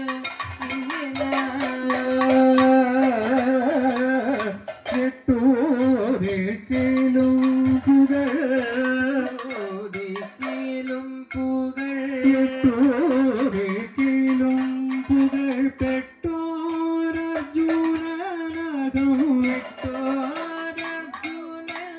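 South Indian classical (Carnatic-style) singing with long held notes and wavering ornaments, accompanied by percussion strokes throughout.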